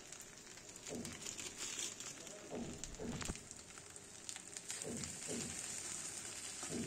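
Metal spatula scraping and stirring fusilli pasta in a kadai, in repeated strokes, some in quick pairs, over a faint steady sizzle; a plastic spice packet crinkles near the start.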